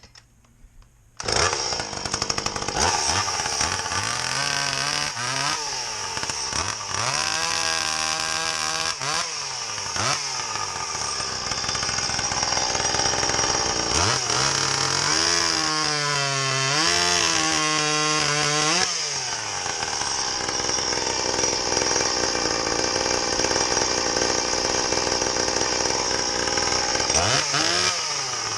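A Stihl MS170 30cc two-stroke chainsaw fitted with a home-made exhaust pipe, which comes in abruptly about a second in. It is revved up and down several times, with a longer steady stretch at high revs, while its carburettor is being tuned.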